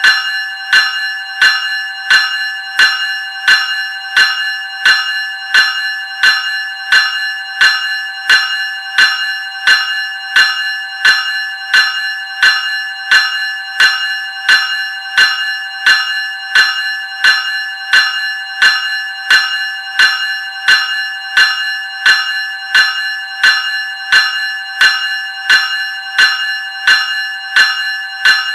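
Graham 373 Series electric bell ringing in a steady, even repeating pattern, a little under two strokes a second, each stroke ringing on at the same bright pitch.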